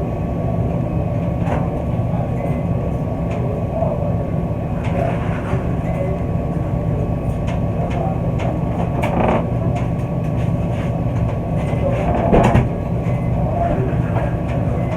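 Steady low rumble of laundromat washers and dryers running, with scattered clicks and knocks and one louder knock about twelve seconds in.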